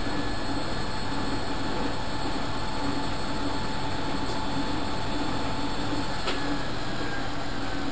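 Vintage top-loading washing machine running, a steady mechanical whirring drone with a faint pulsing hum.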